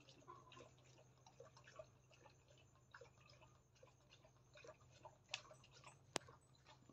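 Near silence with a faint steady hum and scattered light ticks and clicks; one sharper click about six seconds in.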